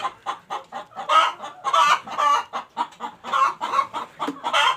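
A flock of chickens clucking, with many short calls overlapping in quick succession.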